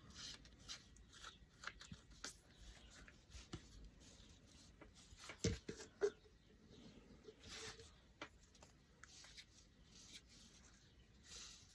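Faint tabletop handling sounds: light taps, small scrapes and paper rustles as a glued paper print is pressed and brushed down with Mod Podge on a wood block, with a couple of sharper knocks about five and a half and six seconds in.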